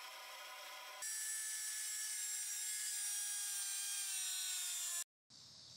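Abrasive cut-off wheel cutting through the end of a forge-welded steel canister. From about a second in it makes a loud grinding hiss with a whine that slowly falls in pitch, and it stops abruptly near the end. Before the cut starts there is a quieter steady hum.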